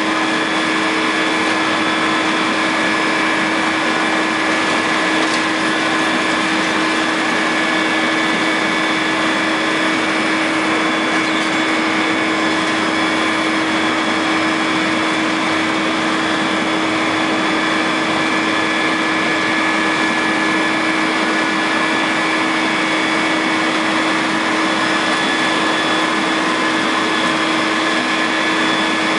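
Caterpillar 330C hydraulic excavator running steadily under work, its diesel engine and hydraulics giving several constant whining tones over a continuous hiss.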